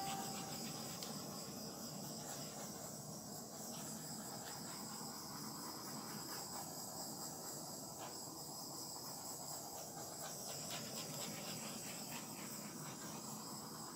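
Faint steady hiss with a thin high-pitched whine over it: room tone with no distinct event.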